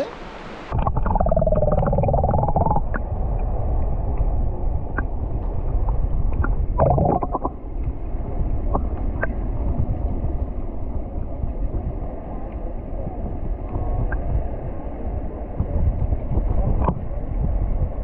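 Muffled rumbling and gurgling of river water, heard with the camera's microphone under water. It sets in suddenly about a second in, with scattered faint clicks and a couple of short, muffled wavering tones.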